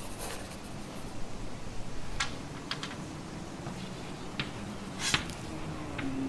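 Pen writing on notebook paper: a few short, separate scratchy strokes, the loudest about five seconds in.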